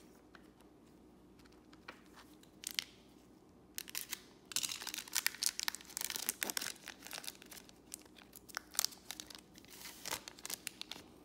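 A foil trading-card pack wrapper crinkling and tearing as it is opened by hand. A few sharp crackles come first, then a dense run of crackling from about four seconds in.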